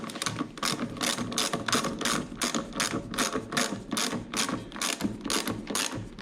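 Hand ratchet wrench clicking steadily, about four clicks a second, running a wheel nut down onto a lawn mower's axle.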